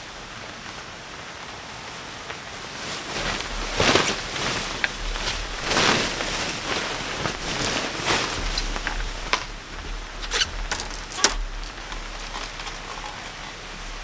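Nylon tent fabric swishing and rustling as the tent is shaken out and spread on a wooden deck, with louder swishes about four, six and eight seconds in, over steady rain patter. A few short sharp clicks come just after the middle.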